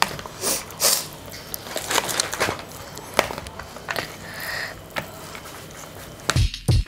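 Spoon stirring a wet, chunky raw shrimp, egg and vegetable mixture in a plastic bowl: irregular squelching and scraping with the spoon clicking against the bowl now and then. Near the end come two heavy dull thumps.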